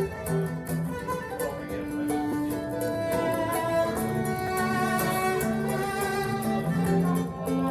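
Recorded music of bowed strings, violin and cello lines with long held notes, played back over hi-fi loudspeakers.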